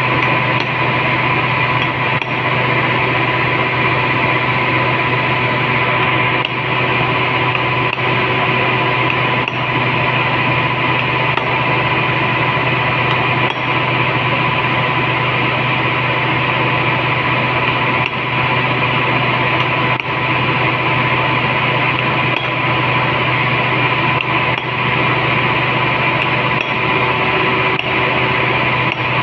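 A steady machine hum with a high, even tone runs throughout and is the loudest sound. Over it come faint sharp taps every few seconds: a hammer striking a hollow punch to cut a gasket from a compressed-fibre sheet.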